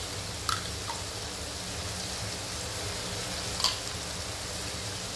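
Chicken mince frying in a pan: a steady sizzling hiss, with two light clicks, one about half a second in and one a little past three and a half seconds.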